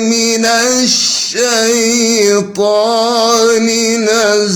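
A man reciting the Quran in melodic tajweed style, unaccompanied and without added effects: long held notes with ornamented, wavering turns, broken twice briefly.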